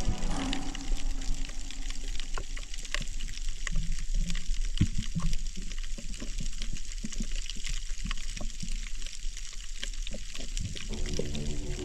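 Underwater sound picked up by the diving camera: a dense crackle of sharp, irregular clicks over a steady water hiss.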